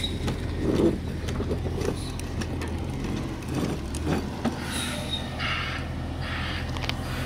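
Garbage truck's diesel engine running, a steady low drone, with a couple of short hisses in the second half.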